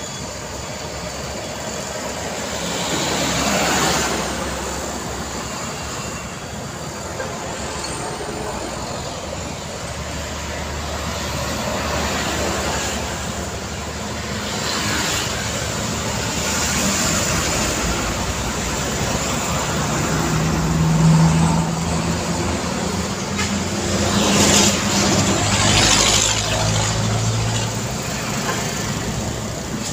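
Busy city street traffic: motor scooters, cars and trucks passing one after another, the tyre and engine noise swelling as each goes by. There is a low engine drone from heavier vehicles in the last third.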